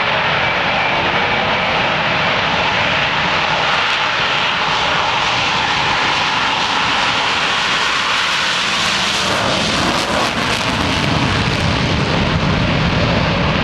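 Four Blue Angels F/A-18 Hornet jets taking off together on afterburner, a loud, steady jet roar. The deep rumble grows stronger about ten seconds in.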